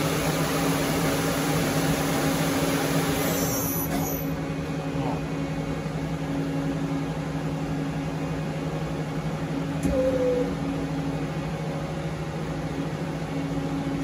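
CNC lathe main spindle and chuck spinning at about 5,000 RPM with a rushing whir, which dies away about four seconds in as the spindle comes to a stop. A steady low machine hum carries on underneath, and there is a single sharp click near the ten-second mark.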